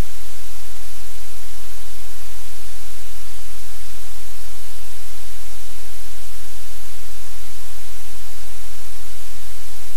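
Loud, steady hiss of static with a deep hum underneath, unchanging throughout.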